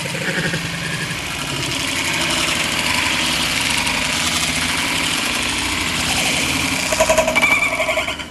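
Remote-control car's motor running steadily under load, with a few short louder pulses near the end.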